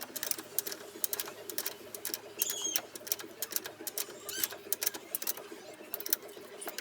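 Irregular clicks, taps and knocks of hand tools and metal parts as brake components are fitted, over a steady low hum.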